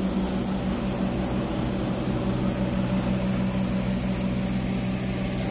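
An engine running steadily at idle: a constant low hum at a fixed pitch that does not rise or fall.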